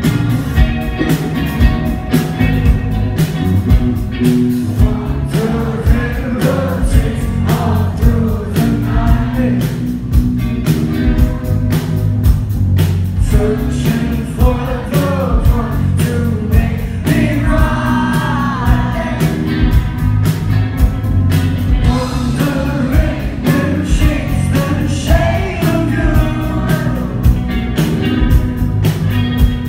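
Live band playing an indie pop song, a male voice singing over electric guitar, bass and a steady drum beat, heard loud from within the audience.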